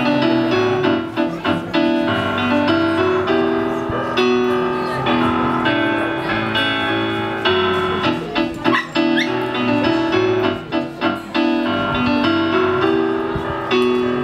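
Instrumental intro played live on a Casio electric keyboard with a piano sound and an acoustic guitar, a repeating chord pattern with no singing.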